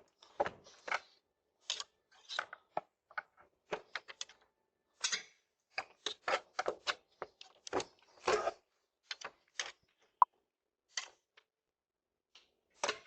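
A door being jimmied: irregular clicks, scrapes and rattles as a tool and the handle are worked at the lock. A short single beep sounds about ten seconds in.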